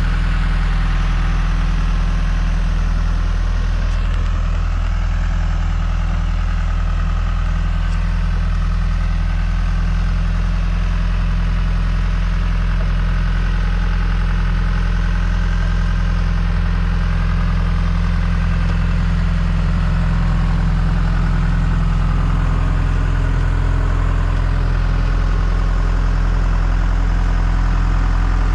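Diesel engine of a John Deere 310G backhoe running steadily at an even speed.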